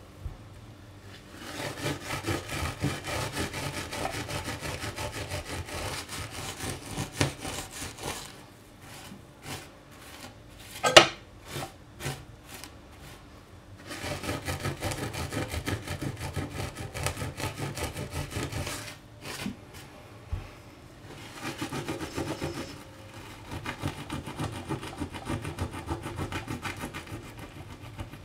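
Melted plastic being scrubbed off a glass-ceramic hob with a dark scouring pad: a quick, rasping back-and-forth rub in three spells with quieter pauses between them. One sharp click, the loudest sound, comes about eleven seconds in.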